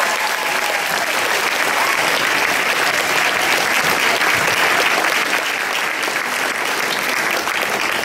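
Audience applauding: many people clapping steadily at the end of a stage act.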